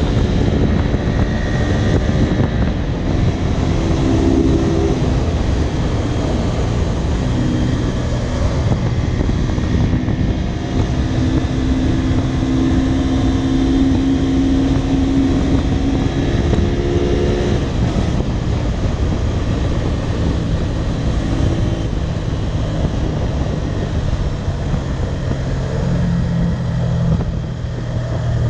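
Honda VTR250's V-twin engine running under way on the motorcycle. Its note rises and drops in pitch several times with the throttle, over a heavy, steady low rumble of riding noise.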